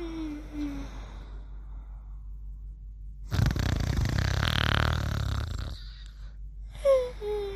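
Snoring in sleep: a rasping snore of about two and a half seconds in the middle, with a whistling breath falling in pitch at the start and again near the end.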